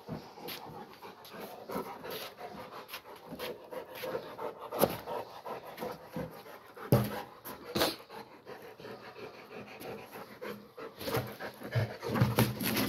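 A Rottweiler panting quickly and steadily while it works a rubber ball along a tiled floor, with a few sharp knocks along the way. The panting grows louder near the end.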